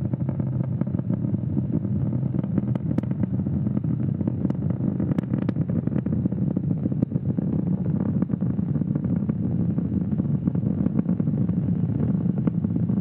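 Falcon 9 first stage's nine Merlin 1D engines roaring during ascent: a steady low rumble with scattered crackles.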